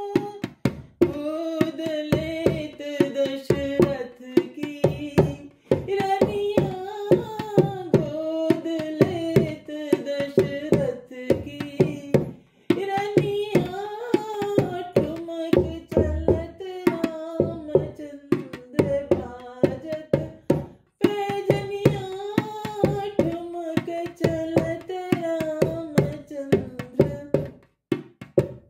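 A woman sings a Hindi sohar (folk birth song) with steady clapping in time, about two claps a second. The singing breaks off briefly between lines every few seconds.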